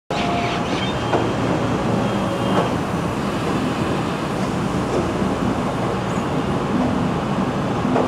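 Apple bin wet-dumper line running: a steady din of conveyor machinery and water churning in the flume tank. Short metallic squeals and two sharp knocks come in the first three seconds as the gantry moves the plastic fruit bins.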